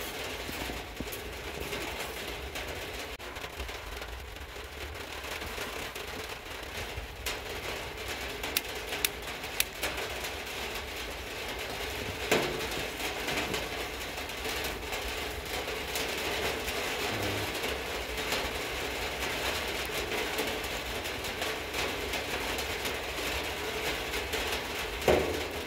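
Steady outdoor background noise with a faint steady hum, broken by a few short sharp clicks, the clearest about halfway through, as a firecracker is set up by hand with a lighter on a wooden stump.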